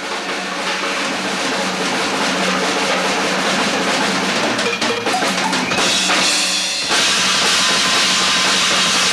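Music led by a drum kit. It fades in over the first second or two and gets a little louder about seven seconds in.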